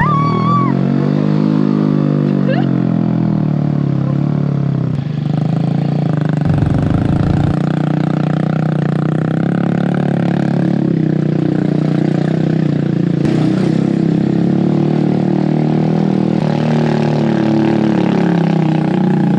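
Motorbike engine running during a ride, its pitch rising and falling over the first few seconds and then holding steady.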